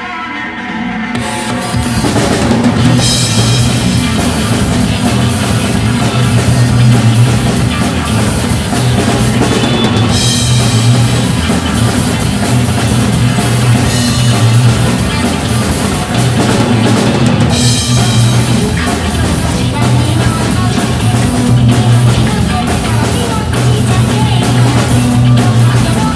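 Rock music with the drum kit coming in about two seconds in and then playing a steady rock beat of kick, snare and cymbals along with a recorded rock song.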